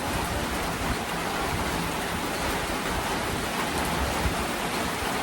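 Heavy rain falling steadily, a constant even hiss of rain on surfaces.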